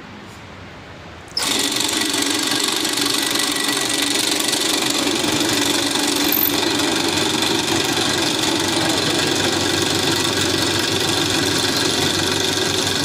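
Electric drilling machine switched on about a second and a half in and running steadily with a constant motor hum, drilling an 8 mm hole in a workpiece held in a machine vice.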